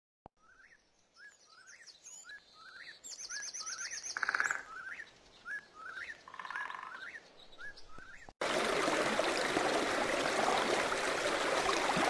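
Recorded jungle ambience: a bird repeating a short rising chirp about twice a second, with high insect-like trills over it. About eight seconds in it cuts abruptly to a louder, steady, dense hiss.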